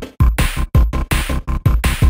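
Electronic background music with a heavy beat: repeated deep bass drum hits and choppy, stuttering cuts.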